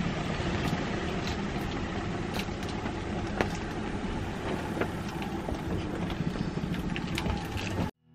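Steady rain on a sailboat's cabin roof, heard from inside the cabin: an even hiss with scattered drop ticks, cutting off suddenly near the end.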